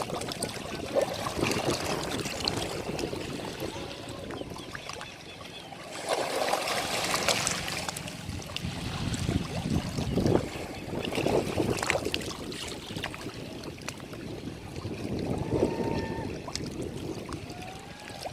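Sea waves washing onto a beach, the rush of water swelling and fading in surges every few seconds.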